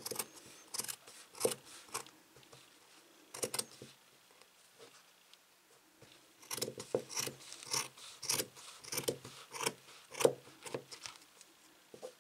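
Scissors cutting through folded felt in short crisp snips: a few at first, a quiet gap of a couple of seconds, then a quicker run of snips.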